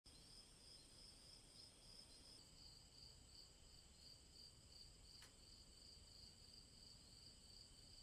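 Faint, steady chirping of crickets: a high-pitched, rapidly pulsing trill.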